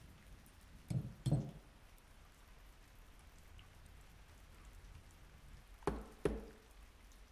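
Two pairs of short dull knocks on a workbench, about a second in and again near the end, as objects are set down; the second pair comes as a hard plastic carry case is put down on the bench.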